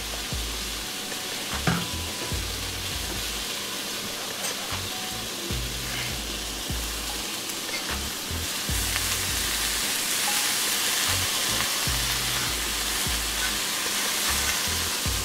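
Steak and cabbage coleslaw frying in a cast iron skillet: a steady sizzle with occasional scrapes and clicks of a utensil stirring the pan. The sizzle grows a little louder about halfway through.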